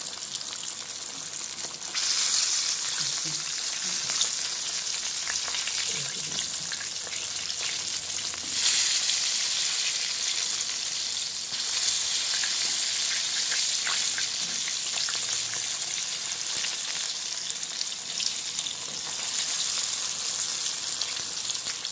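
Whole jack fish frying in a pan of hot oil, sizzling with a steady hiss full of fine crackles. It gets louder about two seconds in and again around nine seconds.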